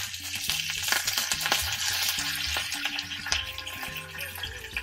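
Fresh curry leaves sizzling in smoking-hot oil in a small cast iron pan for a South Indian tempering, with a dense hiss and many sharp crackles and spits. The sizzle is strongest in the first few seconds and eases near the end.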